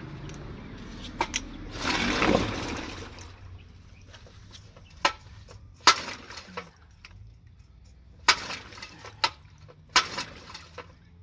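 A failed attempt to start an early-1960s Evinrude Yachtwin outboard motor, with no engine running. About two seconds in there is a loud rushing noise lasting just over a second, then a handful of scattered sharp clicks and knocks.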